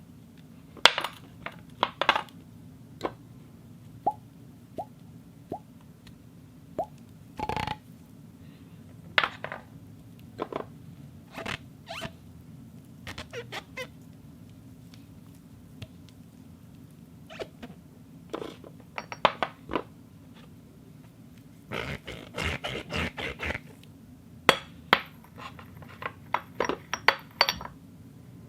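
Glass being clinked, tapped and rubbed into a series of short irregular clinks and squeaks, a few with a brief ringing tone, coming thicker and faster near the end.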